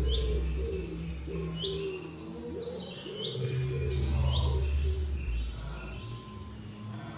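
Birds chirping: a short, rising call repeats about once a second, with other calls around it and a low steady hum underneath.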